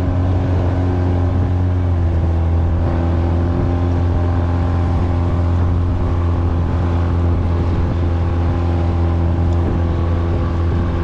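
Motorboat engine running at a steady speed: a constant low drone that holds one pitch throughout.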